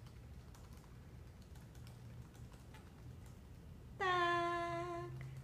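Faint light tapping and rustling, then about four seconds in a human voice holds one long, slightly falling note for about a second.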